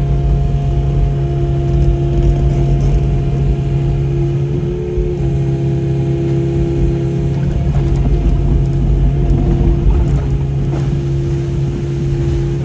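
An engine running steadily at a constant speed with a low rumble, its pitch shifting slightly about five seconds in.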